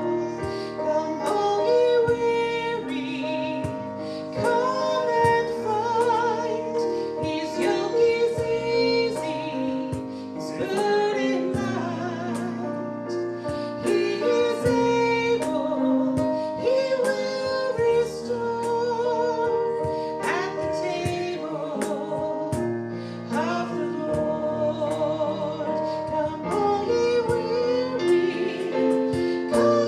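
Music: a woman singing a slow song with vibrato over sustained instrumental accompaniment.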